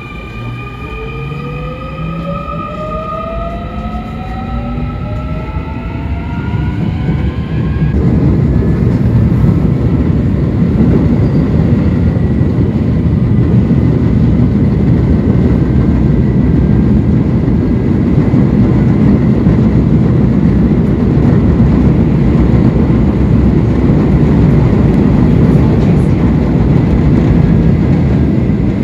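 Electric commuter train heard from on board as it pulls away: the traction motors whine, the whine rising in pitch as the train accelerates. After about eight seconds the whine fades and a loud, steady rumble of the train running at speed takes over.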